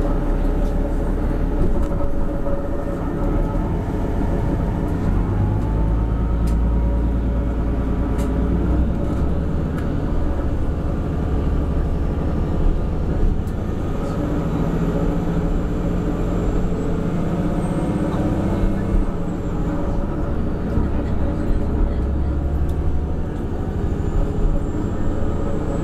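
Cabin noise of a diesel railcar pulling away from a station: the engine runs under power with a steady low drone, along with wheels and track.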